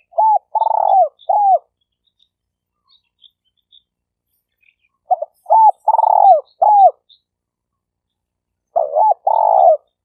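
Spotted dove (terkukur) cooing in the stuttering 'gagap' style: three phrases of several short notes each, about four seconds apart, the notes bending down in pitch at their ends.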